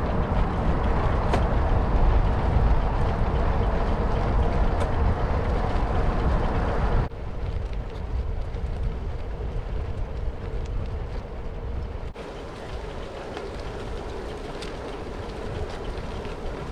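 A passing train's rumble, heavy in the low end with a faint steady tone over it; it drops abruptly to a quieter level about seven seconds in.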